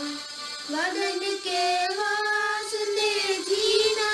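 A child's voice singing a slow melody, holding long notes with short slides up into them.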